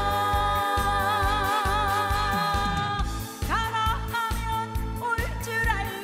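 A woman singing a Korean trot song over a band backing with a steady beat. She holds one long note with vibrato for about three seconds, then starts a new phrase.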